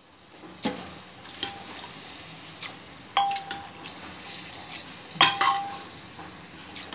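A spoon knocks several times against a metal cooking pot, three of the knocks loud and ringing briefly, over a faint sizzle of masala frying in oil as boiled chickpeas are added.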